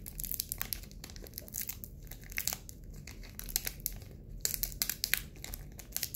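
Foil wrapper of a Japanese Pokémon trading-card booster pack crinkling and crackling irregularly as its sealed top is slowly peeled and torn open by hand.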